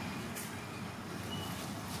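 Steady low outdoor background rumble, with a faint brief rustle about half a second in and a few faint short high chirps.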